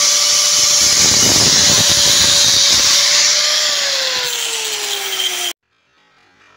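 Angle grinder running its disc against the steel of an iron gate frame to polish it: a steady motor whine over a loud grinding hiss. Past the halfway point the whine's pitch slides down, and about five and a half seconds in the sound cuts off abruptly, leaving faint music.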